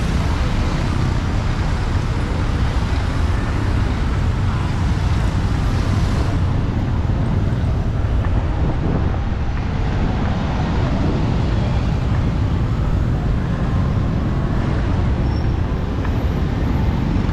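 Steady city street traffic noise of passing vehicles, heaviest in the low end.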